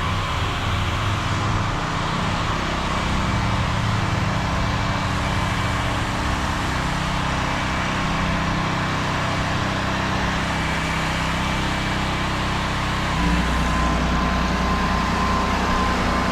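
Small engine on a pressure-washing rig running steadily, with a faint steady whine over it. About 13 seconds in it steps up, louder and deeper.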